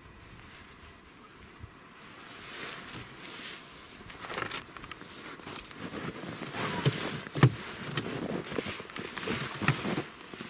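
Hands pulling a ptarmigan apart to breast it out: skin and feathers tearing, with short crackles and clicks that grow busier and louder after about four seconds, and one sharp knock near the middle.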